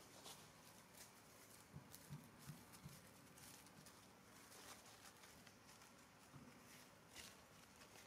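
Near silence: faint outdoor ambience with a few soft, low thumps clustered about two seconds in and one more near the end.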